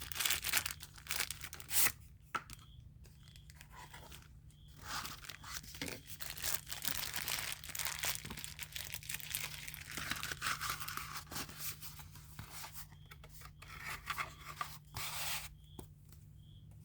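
Packaging being unwrapped by hand, with crinkling and tearing in irregular stretches, some pauses between them.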